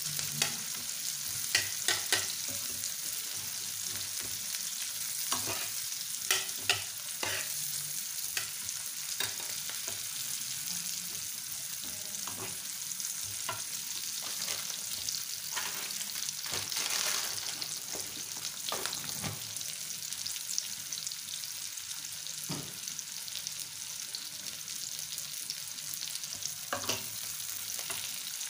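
Chopped onions and garlic sizzling steadily in hot mustard oil in a frying pan, with a spatula scraping and tapping against the pan every so often as they are stirred.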